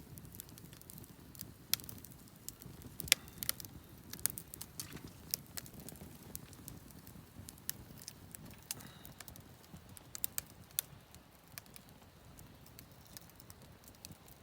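Wood campfire crackling faintly, with scattered irregular pops over a low rumble.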